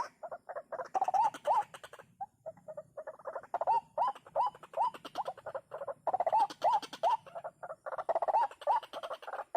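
White-breasted waterhen (ruak-ruak) calling: repeated short hooked notes, several a second, in bouts separated by brief pauses.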